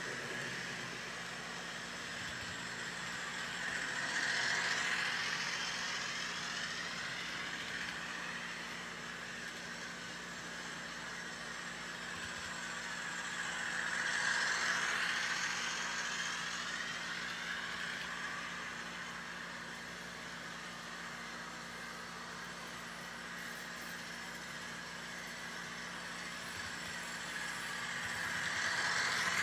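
New HO scale Rapido SW1200 model diesel locomotives running around a loop of track on a break-in run, their motors and gears working in so the gears mesh. The running sound swells three times as locomotives pass close: about four seconds in, about fourteen seconds in, and near the end.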